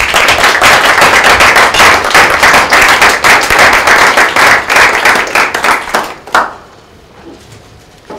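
Audience applauding a speaker's introduction: dense, steady clapping that thins out and stops about six seconds in.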